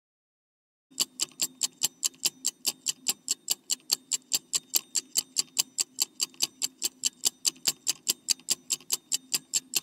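Clock-ticking sound effect of a quiz countdown timer: fast, even ticks, about four or five a second, starting about a second in, over a faint low hum.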